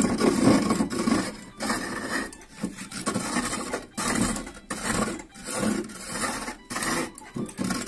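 Hand chisel cutting a log spinning on a wood lathe: a coarse scraping of steel on wood that breaks off and starts again many times as the tool bites and lifts. The log is being roughed down to round.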